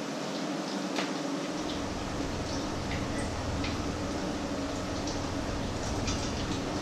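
Food sizzling in a frying pan, with a few light clicks of a utensil against the pan. A low rumble sets in about a second and a half in.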